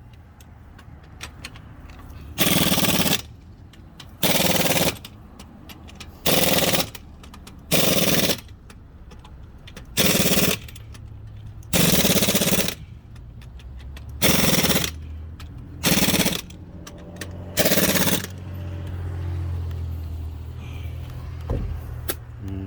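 Pneumatic impact wrench running lug nuts on a truck wheel in about ten short bursts, each under a second, a second or two apart. A low steady hum follows near the end.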